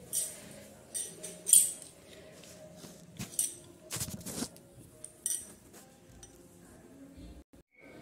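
Metal puja items, brass bell or vessels, jingling and clinking in short bursts about every half second to a second, fading out after about five seconds.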